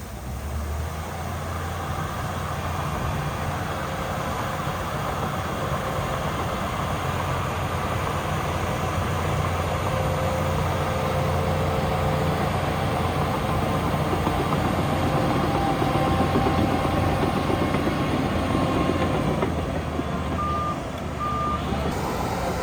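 Heavy construction machinery's diesel engine running steadily under load, with two short reversing beeps near the end.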